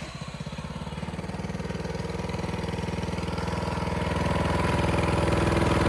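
Riding lawn mower engine running with a fast, even beat, growing steadily louder.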